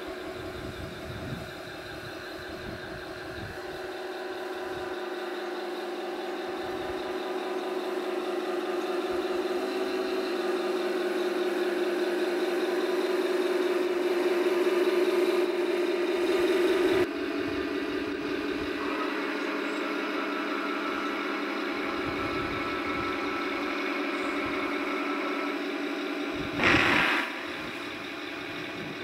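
Tamiya 1/16 radio-controlled Tiger I model tank running, its sound unit playing a simulated tank engine over the drive noise. The engine sound swells over about fifteen seconds and drops suddenly. A short loud burst comes near the end.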